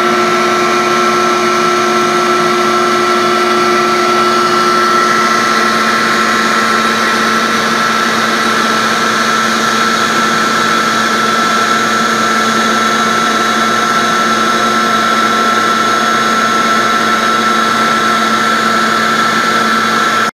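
Maxicam 1325 CNC router running, with a steady high whine over continuous machine noise; a lower hum drops away about six seconds in.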